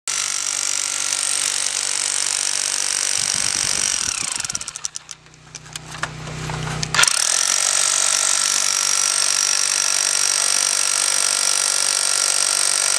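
Corded hammer drill hammering a copper ground rod into the ground, a steady hammering. It drops out for a moment around the middle and starts again sharply about seven seconds in.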